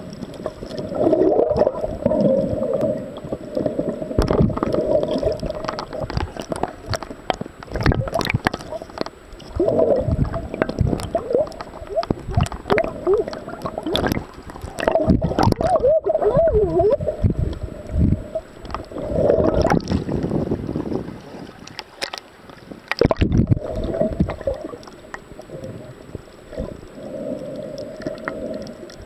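Muffled underwater sound through a camera's waterproof housing: water sloshing and gurgling in uneven swells, with irregular knocks and clicks.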